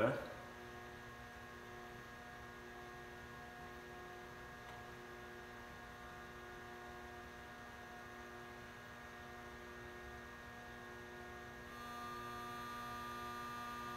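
Homemade half-bridge induction heater buzzing steadily as it heats a steel bolt in its work coil, run at about 80 volts from a variac. About 12 seconds in, the buzz gets a little louder and a new, higher tone joins it.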